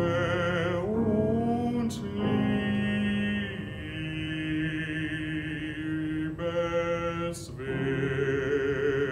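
Male classical voice singing an art song with piano accompaniment, moving through held notes with vibrato and finishing on a long sustained note that begins near the end.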